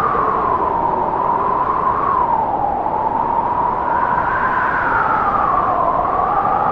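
Howling wind: a steady rush with whistling tones that slowly rise and fall.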